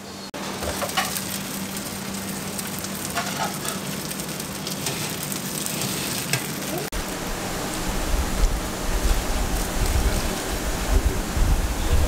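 Commercial kitchen gas range and oven running: a steady sizzling hiss over a low hum, with a few light knocks as the oven tray of roasted red peppers is handled. A low rumble comes in about seven seconds in.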